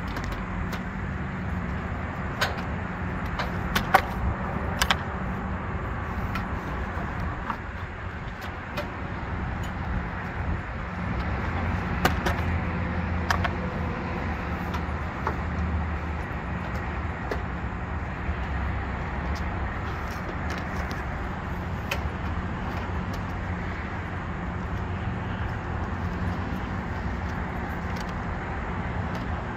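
Steady low hum of a running vehicle engine, with scattered sharp clicks and knocks of plastic edge protectors being set on the load's top edge with a pole. The loudest clicks come about four and five seconds in.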